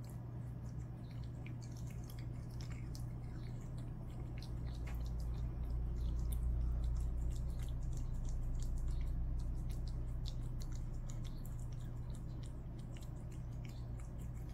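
A domestic cat chewing and lapping wet minced-beef food from a ceramic bowl: a run of small, irregular wet clicks and smacks. A steady low hum runs beneath and grows louder in the middle.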